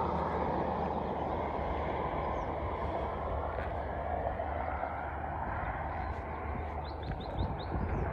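Tyre and road noise of a passing car fading away, over a steady low rumble. A few short high chirps come near the end.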